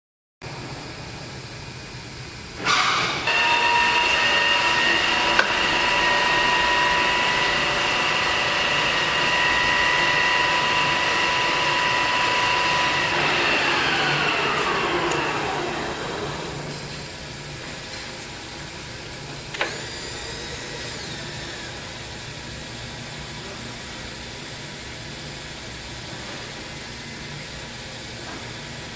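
Comet 9" x 42" vertical milling machine being run: a motor starts with a clunk about three seconds in and runs with a steady whine. After about ten seconds the whine slides down in pitch and fades out. A faint steady hum follows, with a single click near the end.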